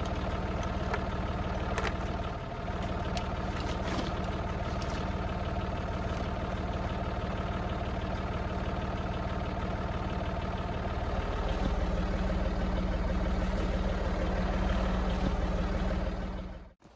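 An engine running steadily at idle, a little louder and heavier from about 11 seconds in, with a few light clicks early on; it cuts off abruptly near the end.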